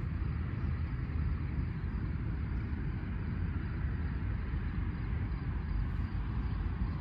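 Steady outdoor background noise, a low rumble under a soft hiss, even throughout with no distinct events.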